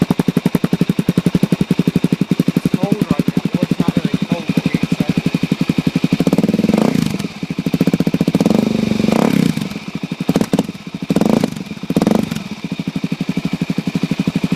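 2006 Suzuki DR-Z400S single-cylinder four-stroke engine idling with even, rapid exhaust pulses through an FMF Powercore 4 slip-on muffler. About halfway through it is revved in several short throttle blips, then drops back to idle.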